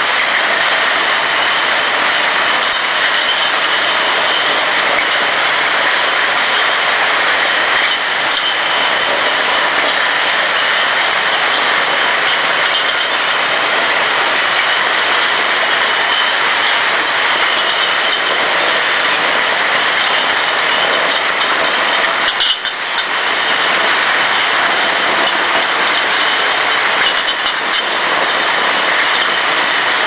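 Automatic beer bottle washing machine running: a loud, steady mechanical noise with a thin high whine over it, dipping briefly a little over twenty seconds in.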